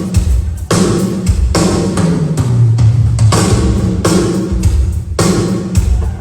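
A drum kit playing a groove, with low sustained bass notes under the hits; one bass note is held for about a second near the middle.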